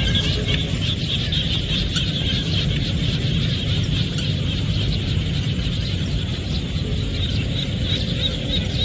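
Rice-field chorus of frogs and insects calling all at once, a dense high trill that never lets up, over a steady low rumble.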